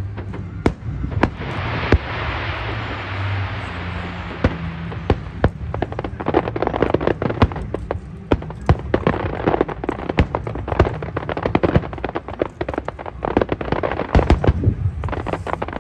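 Aerial fireworks display: shells bursting in rapid, overlapping bangs with a low rumble, and a hissing crackle of sparkling effects between about 1.5 and 5 seconds in.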